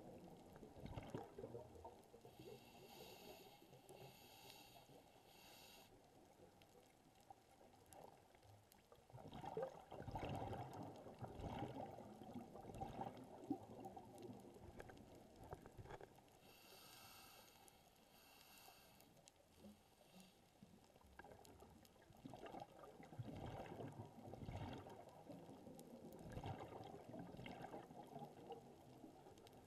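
A scuba diver's regulator breathing, faint through an underwater camera housing. There are two breaths, each a short hiss of inhaling followed several seconds later by a longer spell of bubbling and gurgling as the exhaled air escapes. The bubbling is the loudest part.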